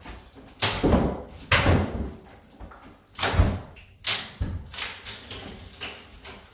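Pickaxe blows striking a wooden cabinet being torn out: five or six heavy strikes at uneven spacing, with a short pause in the middle.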